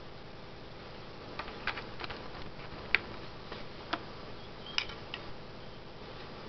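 Scattered small clicks and taps of a USB cable and connector being handled and plugged into a WeMos microcontroller board, the sharpest about three seconds in, over a steady hiss.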